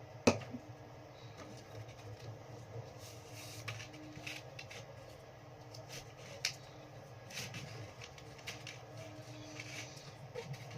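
Paper being handled and folded: a sharp tap about a third of a second in, then scattered short crinkling and rustling as the sheet is creased.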